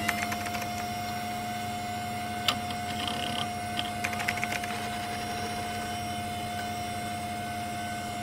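Electronic intro sound effect: a steady high tone over a low hum, with scattered short clicks and ticks, one sharp click about two and a half seconds in and a quick run of ticks soon after.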